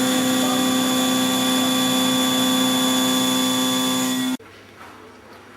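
Spindle of a Kinetic K4000 CNC drilling and milling table running while milling, a steady whine of several tones that cuts off suddenly about four seconds in.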